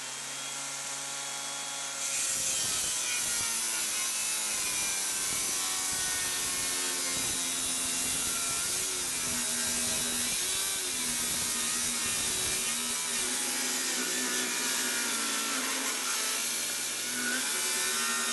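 Table saw running, then ripping a wooden strip along the fence to cut its uneven edge straight. The blade spins free at first, and the cut begins about two seconds in and gets louder. Its whine dips and recovers several times as the wood loads the blade.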